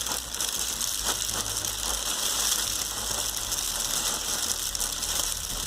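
Lego waterfall mechanism running: plastic gears and parts clicking rapidly while it scoops up small loose plastic 'water' pieces and passes them through, a steady dense clatter.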